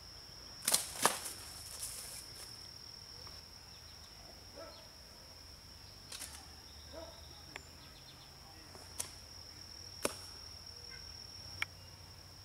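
Steady high-pitched insect trilling, with sharp clicks: a loud pair about a second in and single clicks near the middle and toward the end.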